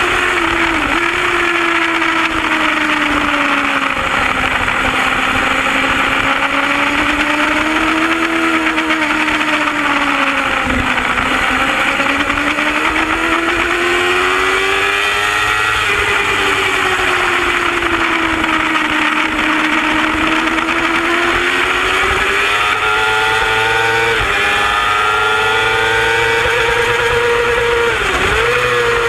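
Racing superbike engine held at high revs, its pitch rising and falling slowly through the corners, with a few quick dips in pitch as it shifts gear. Heavy wind rush on the bike-mounted microphone runs under it.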